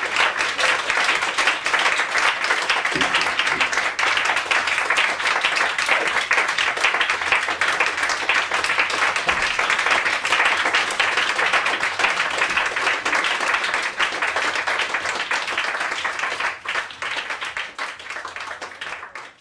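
Audience applauding, a dense patter of many hands clapping that thins out and fades over the last few seconds.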